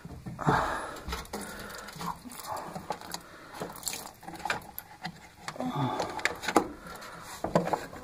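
Hands working at a washing machine's rubber tub-to-pump hose and drain pump, giving irregular clicks, knocks and rustles.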